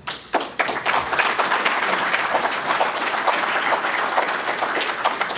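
Conference audience applauding, many hands clapping at once; the clapping starts right away and begins to thin out near the end.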